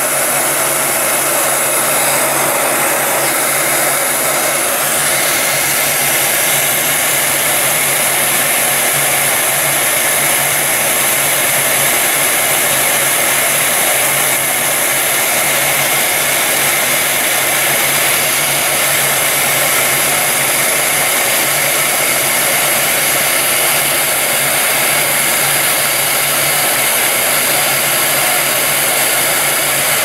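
Heat gun blowing hot air steadily, its fan running with a faint motor hum, while it shrinks heat shrink tubing onto a battery plug.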